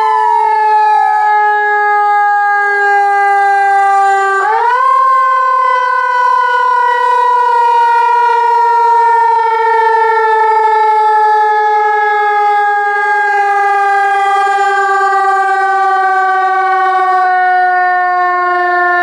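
Whelen electronic siren sounding its simulated mechanical-siren tone: a quick rise in pitch and then a slow fall. It is pushed up again about four seconds in, then falls slowly until it cuts off just at the end.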